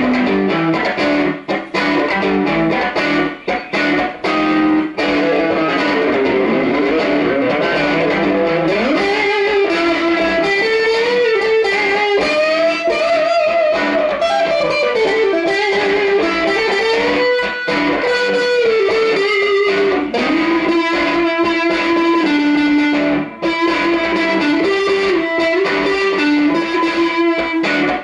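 Squier Stratocaster electric guitar played through a Fender M80 amp: choppy chords broken by short gaps for the first few seconds, then a sustained single-note lead line with bends and slides.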